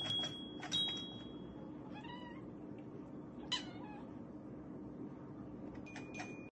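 Tabby cat pawing a toy xylophone, striking a couple of bright ringing metal notes near the start and another near the end. In between, the cat meows twice, the second call sharper and higher.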